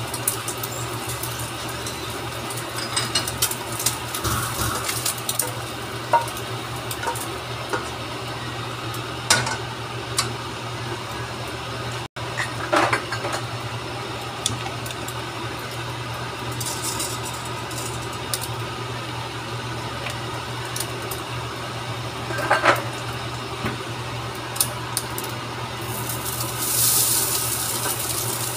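Dishes and cooking utensils clinking and knocking now and then over a steady low hum. Near the end a sizzle rises as cooked rice is tipped from a plate into the hot frying pan with scrambled egg.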